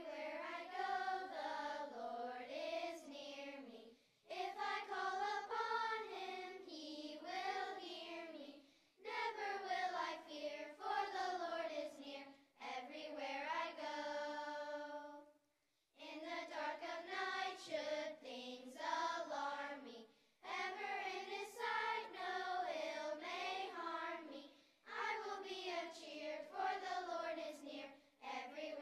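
A chorus of third- to sixth-grade children singing in phrases with short breaks between them, ending one phrase on a held note followed by a brief silence about 15 seconds in.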